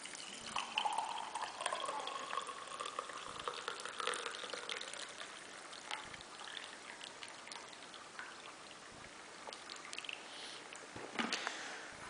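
Coffee poured from a plunger pot into a cup, the pouring sound rising in pitch as the cup fills over the first few seconds, then fainter, with a few light knocks near the end.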